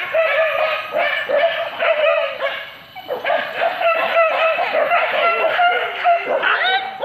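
Pig-hunting dogs yelping and baying, several voices overlapping almost without pause, with a short lull about three seconds in.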